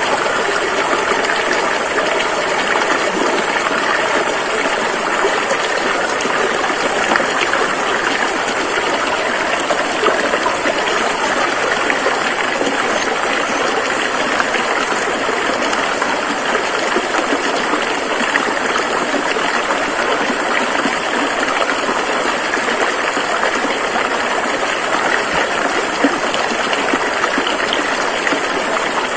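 A rushing river flowing steadily over rocks, a continuous even rush of water with no breaks.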